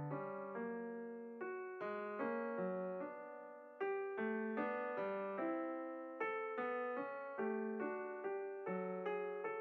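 Background solo piano music: a gentle melody of single notes and chords, each note struck and left to ring and fade.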